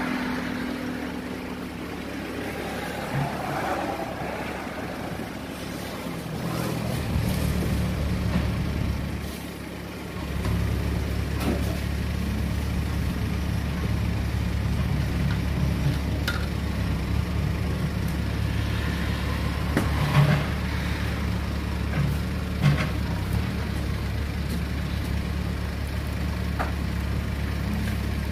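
An engine idling with a low, steady hum that sets in about a quarter of the way through, drops away briefly, then holds on. A few light clicks and knocks sound over it.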